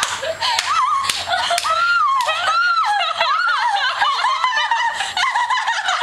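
Several young women laughing hard together, high-pitched giggles and shrieks of laughter overlapping without a break.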